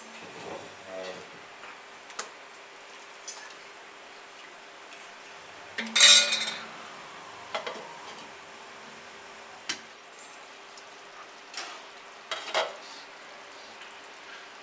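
Steel ladle clinking and scraping against a nonstick kadai as boiling chicken curry is stirred, with scattered clinks throughout. About six seconds in there is one louder ringing clink as a glass lid is set on the pan.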